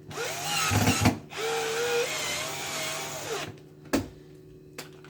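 A power drill run in two bursts, the motor whining up to speed and winding down each time, with a sharp click just after.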